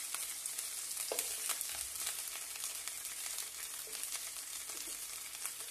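Pieces of tuna sizzling in hot oil in a frying pan: a steady hiss, with a few light ticks of the utensil against the pan as the pieces are turned and pushed aside.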